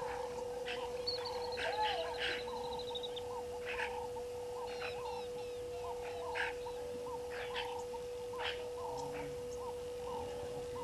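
Frogs and birds calling: a steady run of repeated short croak-like calls with scattered higher chirps, and a descending trill a second or so in, over a steady hum.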